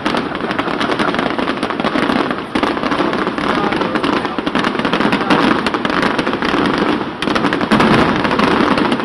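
Fireworks going off in a dense, continuous barrage, many bangs and crackles overlapping with no pause.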